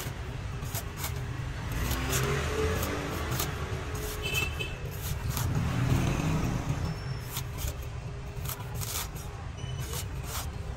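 A cleaver chopping and shaving the fibrous husk off a young green coconut: irregular sharp chops, about one or two a second, over a steady low rumble.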